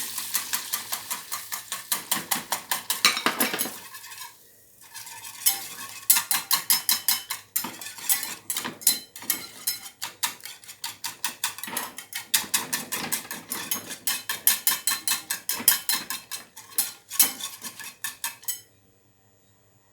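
A cooking utensil scraping and knocking against a pot in quick, repeated strokes, several a second, as egg whites are scrambled in oil. There is a short pause about four seconds in, and the strokes stop shortly before the end.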